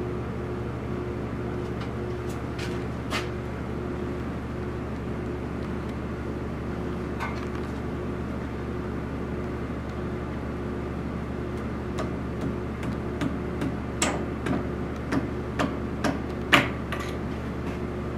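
Steady low hum of workshop background noise. Over the last several seconds, a run of light clicks and knocks from a muzzleloader being loaded, with the bullet being pressed into the muzzle and tools being picked out of a leather bag.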